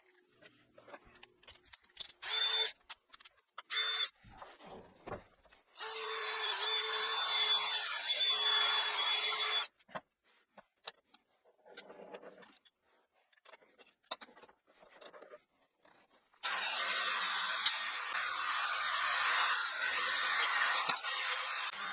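A handheld power tool scouring rust off a garbage disposal's metal plate: two short bursts, then a run of several seconds, a pause, and another long run near the end.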